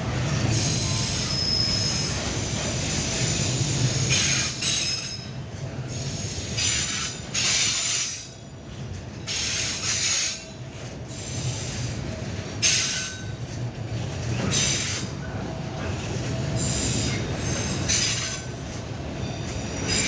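Container flatcars of a freight train rolling past: a steady low rumble of steel wheels on rail, with high-pitched wheel squeals coming and going irregularly every second or two.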